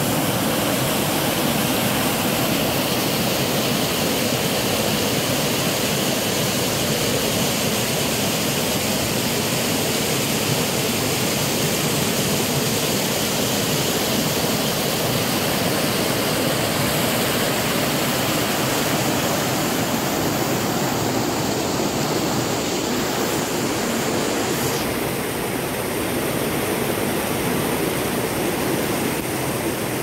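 A small waterfall's white water pouring over rocks, a steady rush, slightly softer over the last few seconds.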